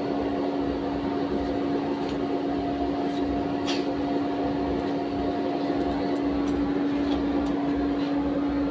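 A motor-driven machine running with a steady hum and a constant low tone, with a few faint metallic ticks.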